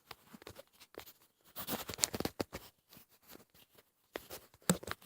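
Scattered light clicks, taps and rustles of objects being handled while setting up, busiest around two seconds in and with a few more clicks near the end.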